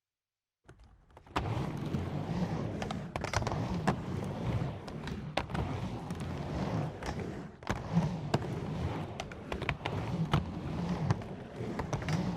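Skateboard rolling: a steady rumble of wheels on hard ground, broken by frequent irregular sharp clacks, starting after about a second of silence.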